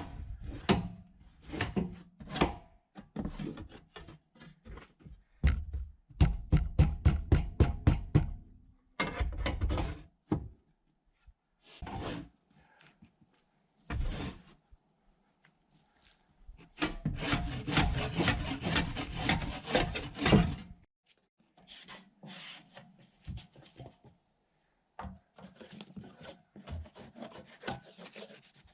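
Wooden boards being handled: knocks and scraping, with bursts of rapid, even rubbing strokes and short quiet gaps between them.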